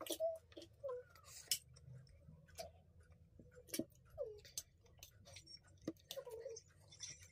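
Scattered sharp clicks and scrapes of steel forks against steel plates, with chewing of noodles as two people eat fast, and a few short vocal noises in between.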